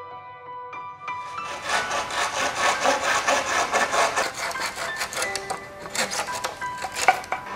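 Hand saw cutting through a green bamboo culm in quick back-and-forth strokes, starting about a second in, over soft background music.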